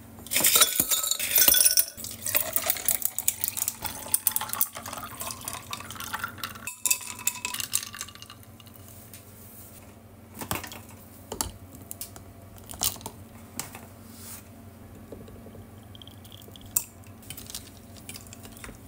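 Ice cubes clattering into tall drinking glasses, then iced coffee poured over the ice, the pitch rising as the glasses fill. Afterwards a few light glass clinks.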